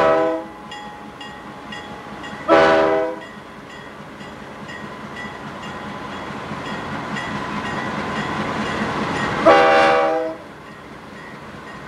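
GE Dash 8 diesel locomotives rumbling past, their air horn giving two short blasts about 2.5 and 9.5 seconds in. The rumble grows louder before the second blast, and faint evenly spaced dings, like a locomotive bell, ring behind it.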